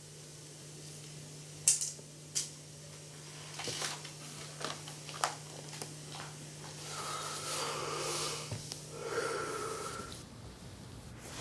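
A few sharp plastic clicks from a toddler's toy, then an old man's slow, heavy breaths with a whistling wheeze, his eyes closed and mouth open as he dozes.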